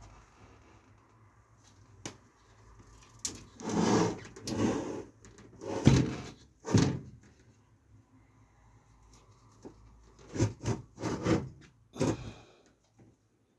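Hands handling parts: rustling, then a series of knocks and clatters in two clusters, the sharpest pair near the middle.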